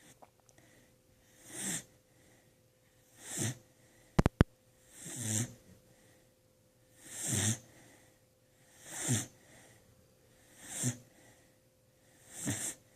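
Slow, steady snoring: seven snores, about one every second and three quarters, each a low rumble with a breathy hiss. Two sharp clicks a little past four seconds in are the loudest sounds.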